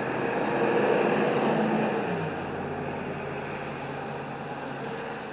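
Concrete mixer truck's engine running hard for about two seconds, then dropping to a lower, steady speed.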